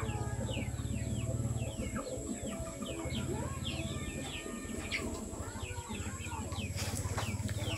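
Birds chirping, many short falling chirps in quick succession, over a steady low rumble.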